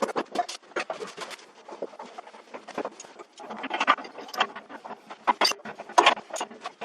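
A rapid, irregular run of light knocks, taps and scrapes, thickest about four and six seconds in, from a tank water heater being shifted and gripped by hand in a tight space.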